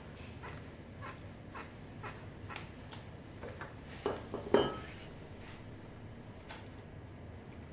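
Metal tools and scooter parts being handled: a run of light clicks about twice a second, then two louder metal clanks about four seconds in, the second ringing briefly, and one more click later.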